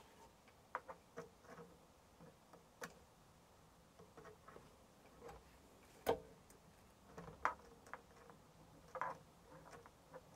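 Scattered faint clicks and taps of multimeter probes and loose wiring being handled on an opened air fryer, with one sharper click about six seconds in.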